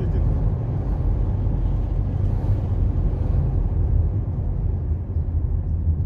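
Steady low rumble of a car driving on a city road, heard from inside the cabin: engine and tyre noise.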